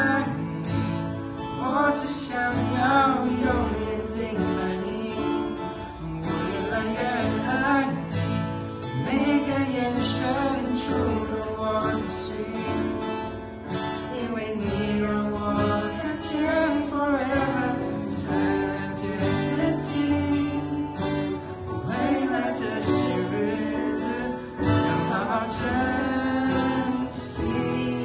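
Acoustic guitar strummed with digital piano chords, accompanying a small group of male and female voices singing a Mandarin worship song together.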